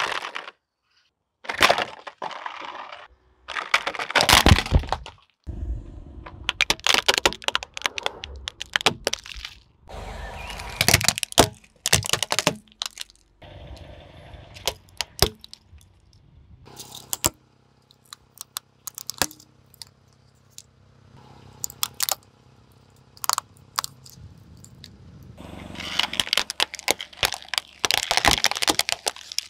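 Plastic toy vehicles cracking and breaking as a car tyre rolls over and crushes them. It comes as a series of separate crunching, snapping bursts with a few short silences between.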